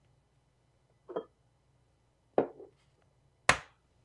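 An egg tapped against a hard edge to crack it: three sharp knocks about a second apart, each louder than the last.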